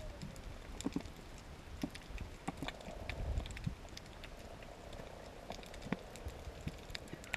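Underwater ambience heard through an action camera's waterproof housing: scattered faint clicks and crackles over a low rumble.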